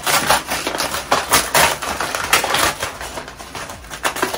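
Brown kraft paper crinkling and rustling as it is unwrapped by hand from around a potted plant: irregular crackles, quieter in the last second or so.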